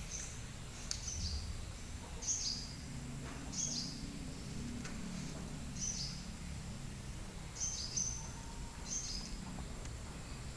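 A small bird calling with short, high chirps that slide downward, repeated about every one to two seconds, over a steady low background rumble.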